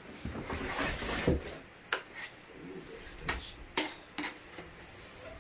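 Handling noise from unpacking a shop vacuum's box and parts: rustling with a few sharp clicks and knocks about two, three and four seconds in.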